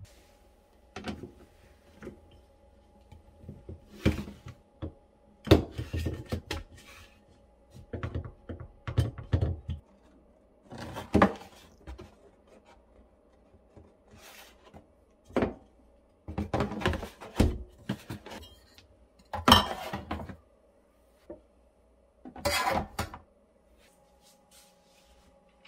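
Plastic and paper magazine file holders being handled and set down on a stone kitchen countertop: scattered knocks, taps and scrapes in irregular clusters, over a faint steady hum.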